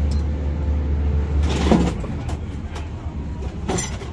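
Scrap metal clanking and knocking as pieces are shifted about in the back of a van: a loud clank about halfway through and another near the end, over a low, steady engine rumble.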